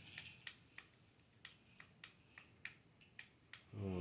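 Small sharp plastic clicks, about a dozen at irregular intervals, from handling the miniature remote-control car and its remote.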